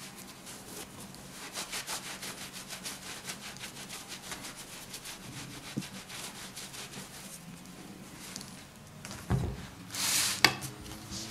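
A cloth rubbing over a salt-cured duck breast in quick repeated strokes, wiping it clean of its salt cure against a wooden cutting board. Near the end come a thump and a louder knock on the wooden board.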